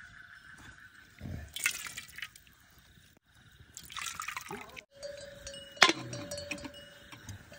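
A steel ladle scooping and pouring thick curry into a steel bowl, with wet splashing, in short spells. A single sharp metal clank, the loudest sound, comes a little before the end.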